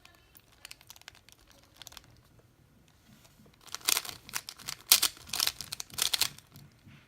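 A 3x3 Rubik's Cube being turned by hand: a few faint clicks at first, then from about halfway through a quick run of louder clacking turns lasting a couple of seconds.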